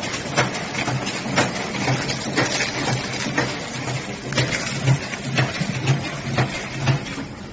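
Energy-ball flow-wrapping packaging machine running: a steady pulsing mechanical hum with a sharp click about once a second.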